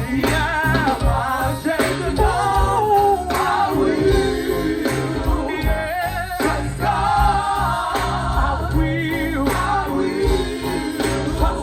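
Live gospel song: a singer holding long, wavering, ornamented notes over band accompaniment with steady bass and drums.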